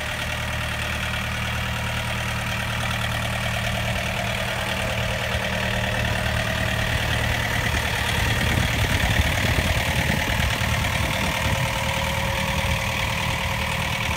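Yanmar LX4100 compact tractor's diesel engine running steadily at low speed as the tractor creeps forward, growing louder about two-thirds of the way through as it passes close by.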